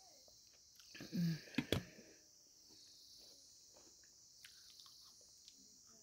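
A glass of tea set down on a metal serving tray: a short low tone and then two or three sharp clinks about a second and a half in, over a steady faint high hiss.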